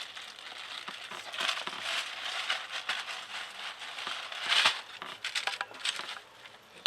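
Rustling and scraping handling noise with scattered small clicks, from hands working the mirror's mounting bolt and clamp. It swells louder twice, about one and a half seconds in and near the middle.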